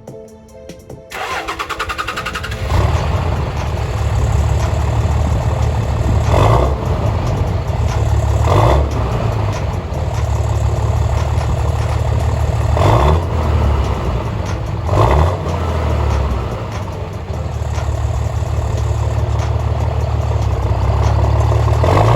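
A 5.9L Cummins turbo diesel in a 2006 Dodge Ram 2500, running through a stack exhaust, turns over and starts about a second in. It then runs steadily with several short throttle blips and rises in revs near the end.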